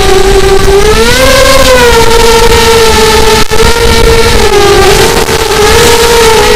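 Nighthawk 280 quadcopter's motors and propellers whining, picked up by the camera's microphone on board, with wind noise on the mic. The pitch rises about a second in and dips twice near the end as the throttle changes. It cuts out for an instant about halfway through.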